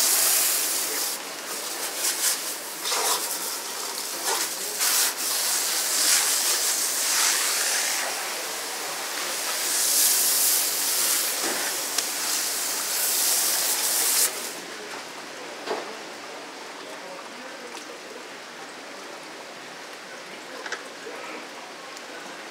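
Running water splashing hard, as from a tap or hose at a fish-cutting counter. It is shut off suddenly about fourteen seconds in, leaving a fainter steady hiss.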